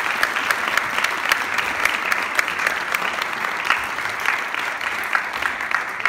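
A crowd applauding: a steady patter of many hands clapping, with some sharper single claps standing out.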